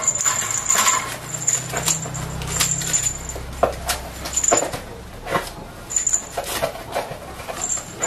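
Crow moving about a wire cage and its wooden perches: scattered sharp clicks and knocks from claws and beak on wire and wood. A high, thin tone comes and goes in short stretches, with a low rumble in the first half.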